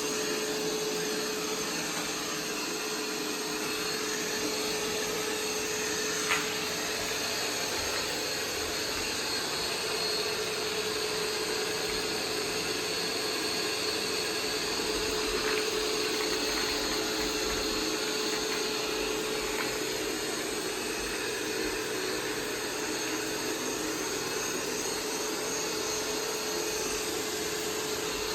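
Roomba 505 robot vacuum running steadily, its motor and brushes giving an even hum with a steady whine. A sharp click about six seconds in, and a fainter one later on.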